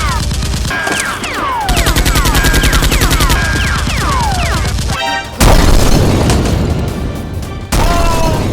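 Action-film gunfire sound effects: rapid machine-gun-style fire with quick falling whistles, then a loud explosion boom about five and a half seconds in that dies away slowly, and one more hit with a falling whistle near the end.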